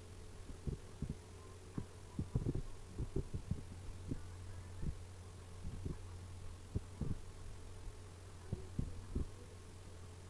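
Irregular soft thumps and clicks of a computer mouse being clicked on a desk while editing a drawing, over a steady low electrical hum.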